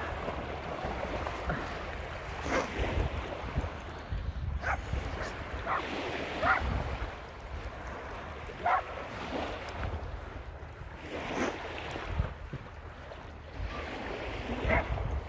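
Wind buffeting the microphone over small waves lapping at the shore, with short dog barks breaking through about seven times, most of them between about 2 and 9 seconds in and one near the end.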